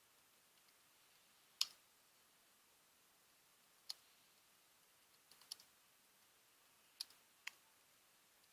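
Computer keyboard keys clicking sparsely over near silence: single sharp keystrokes a second or two apart, with a quick little cluster of three about halfway through.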